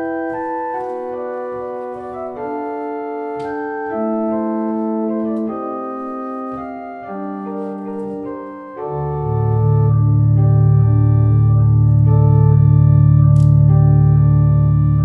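Two-manual electronic organ playing a slow succession of sustained chords. About nine seconds in, a deep bass note comes in under them and the sound grows louder.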